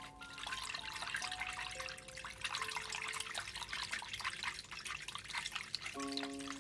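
A whisk beating a thin liquid mixture in a small saucepan: quick, continuous wet splashing strokes. Soft background music notes play underneath, mainly in the first half and again near the end.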